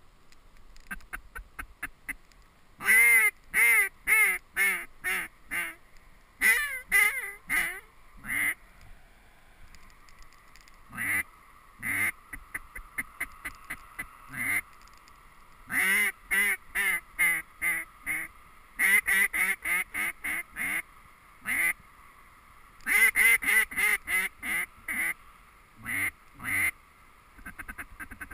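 Duck call blown in mallard-hen quacking sequences: runs of about six to nine quacks, each run loud at first and trailing off, with pauses between runs. A quicker, softer string of quacks comes in the middle.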